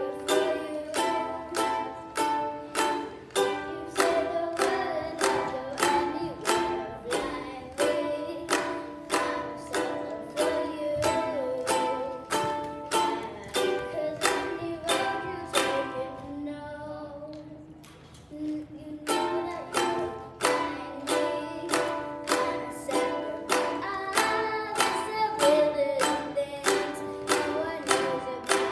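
Ukulele strummed in a steady rhythm, about two strokes a second; the strumming breaks off for about two seconds a little past the middle, then starts again.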